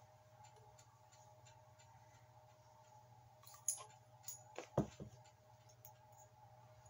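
Faint clicks and ticks of two small hex drivers working a bolt on a metal shaft, one on each side as it is tightened. A few sharper clicks come between three and a half and five seconds in, the loudest near five seconds, over a steady low hum.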